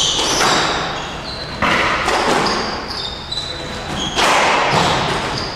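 Squash rally: the ball hitting racket and walls in sharp impacts about every two and a half seconds, each ringing on in a long echo, with short high squeaks of shoes on the court floor between them.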